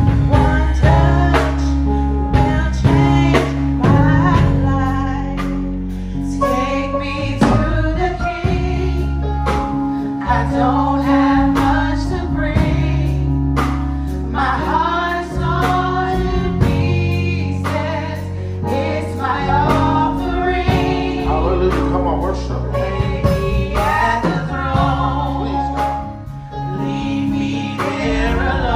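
Gospel praise song sung by a woman leading into a microphone, with male and female voices joining, over steady sustained instrumental backing.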